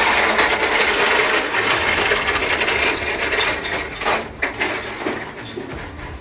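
Steel tank of a tanker truck crackling and creaking as it buckles and caves in, a dense run of snaps and pops with a few sharper cracks, fading toward the end: the tank collapsing under vacuum.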